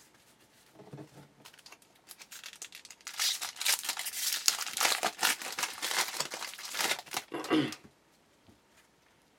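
Foil wrapper of a 2012 Bowman Jumbo baseball card pack being torn open and crinkled. A few small crackles lead into about four seconds of dense crinkling.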